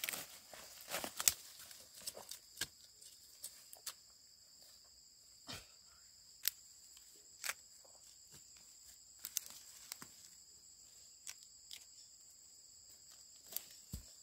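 Insects chirring steadily at a high pitch, under scattered sharp rustles and knocks as cassava plants and roots are pulled up and handled.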